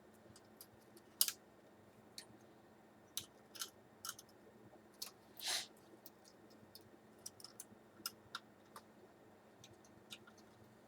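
Small screwdriver clicking and scraping against tiny screws and the metal slot cover on a Sager NP8651 laptop's underside: scattered light clicks, a sharper click about a second in and a short scrape about five and a half seconds in.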